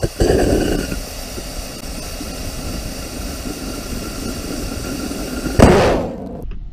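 A steady hiss for about five seconds, then a 350 lbf nitrous oxide–isopropyl alcohol liquid rocket engine lights with a sudden loud rush of noise at liftoff, about five and a half seconds in.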